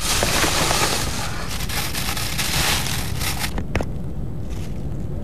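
Plastic shopping bag rustling and crinkling as groceries are pulled out of it for about three and a half seconds, then quieter handling with a single sharp click.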